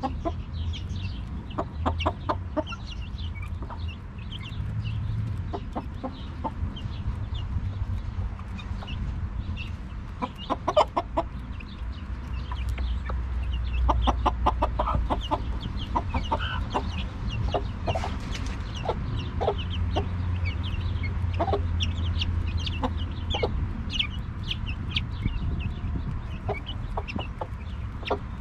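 A hen clucking while her chicks peep with many short, high calls as they feed, and a few quick runs of sharp clicks.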